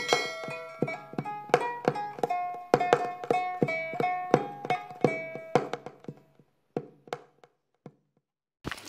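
Intro music played on a plucked string instrument, a picked melody of short ringing notes; it thins out about six seconds in to a few last notes and a short silence. Right at the end, oil starts sizzling in a frying pan.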